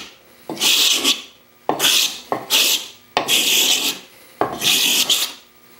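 Stanley No. 80 scraper plane's blade scraping across a rough-cut sipo (African mahogany) board in about five short strokes, roughly one a second, each starting sharply and trailing off, as it takes off the grimy, saw-marked surface.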